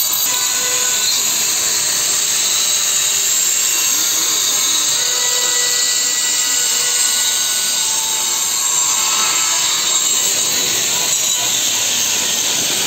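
Power tools grinding and cutting stone: a loud, steady high-pitched hiss and whine, with faint tones that shift up and down.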